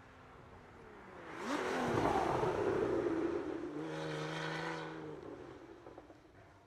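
A car engine under hard acceleration passing close, rising in pitch as it approaches, holding a steady note for about a second, then fading away up the hill.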